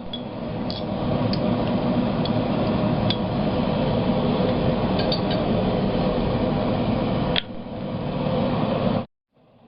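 Forge running with a steady rushing noise, with a few faint light clicks scattered through it. The noise dips briefly with a click about three-quarters of the way in, then cuts off abruptly near the end.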